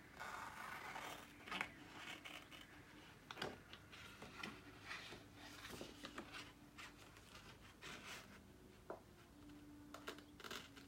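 Faint rustling and a few light taps as a plastic Chalk Couture transfer sheet is handled and shifted over an easel board.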